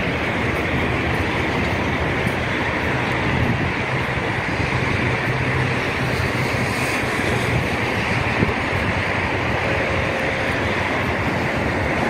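Steady wind noise on the microphone mixed with the rumble of road traffic.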